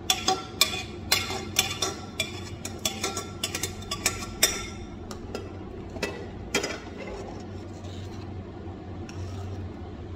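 Metal ladle knocking and scraping against a pressure cooker pot and a kadhai as boiled chickpeas are scooped out and stirred into the masala: a quick run of clinks and knocks in the first half, a couple more a little past the middle, then only a low steady hum.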